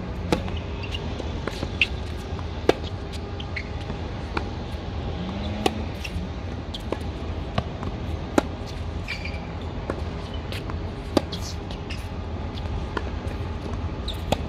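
Tennis ball being struck by racquets and bouncing on a hard court during a serve and rally: sharp pops about one to three seconds apart over a steady low background noise.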